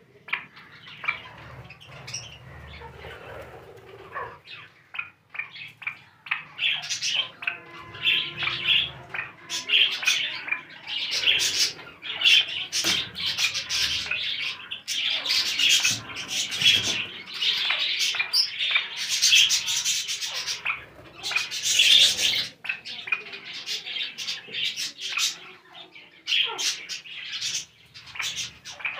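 Many caged aviary birds chirping and squawking in quick, overlapping calls, getting busier about six seconds in.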